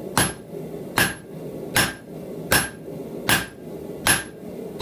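Blacksmith's hand hammer striking a red-hot steel bar on an anvil: six evenly paced blows, about one every 0.8 s, each with a short metallic ring. It is hot forging of the bar's ridge line as it is shaped into an animal head.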